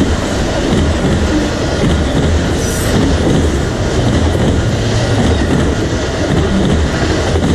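Autorack freight cars rolling past close by: a steady noise of steel wheels running on the rails.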